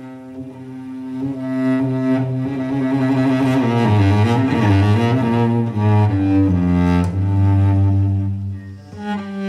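Background music of bowed strings, with cello and double bass carrying long sustained notes. It swells to its loudest in the middle and eases briefly near the end.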